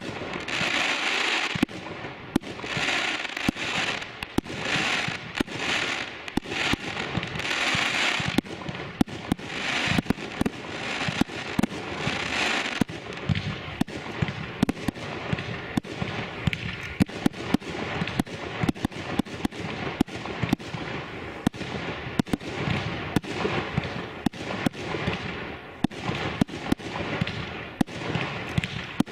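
Fireworks firing from the ground and bursting overhead in quick succession: many sharp bangs throughout. In the first half, a hissing crackle swells and fades about every two seconds; in the second half, the bangs come thick and fast.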